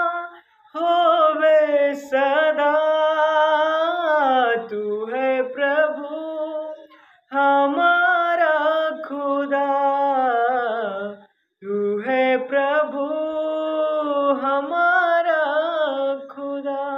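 A man singing a Hindi Christian worship song unaccompanied, in three long held, wavering phrases with short breaks for breath between them.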